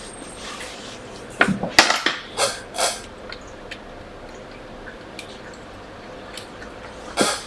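A few light clicks and clinks of small objects being handled, bunched about one to three seconds in, then a quiet steady background with scattered faint ticks and a sharper click near the end.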